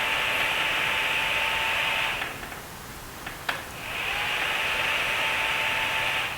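Fan of a 5.6 W diode laser engraver whirring with a steady whine while the laser solders. It stops about two seconds in, a sharp click follows, and it spins back up with a rising whine about four seconds in, running until it cuts off at the very end.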